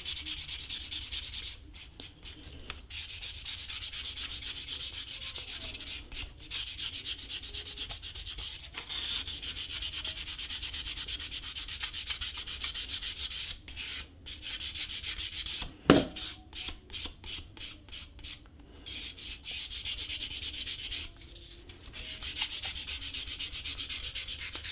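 Sandpaper rubbed by hand in quick back-and-forth strokes along the painted edge of a leather piece, sanding down a dried layer of acrylic edge paint to shape its profile. The strokes break off briefly a few times, and one sharp knock comes about two-thirds of the way through.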